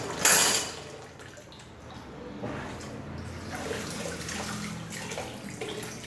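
Water splashing and sloshing as a metal stove burner grate is washed in soapy water, with a brief louder splash at the very start and softer steady water noise after it.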